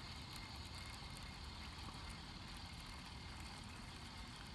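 Faint steady outdoor background noise: a low rumble with a thin hiss above it.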